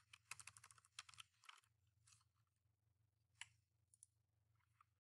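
Faint computer keyboard keystrokes over near silence: a quick run of taps in the first second and a half, then a single click about three and a half seconds in.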